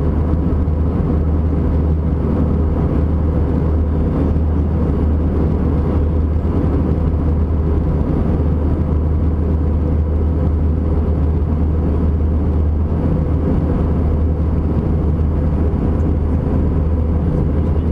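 Steady low drone of an Airbus A320-200's engines and airflow heard from inside the passenger cabin, unchanging, as the jet taxis after landing.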